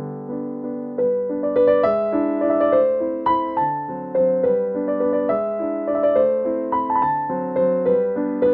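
Background piano music: a light melody of quick single notes over held chords, picking up and growing brighter about a second in.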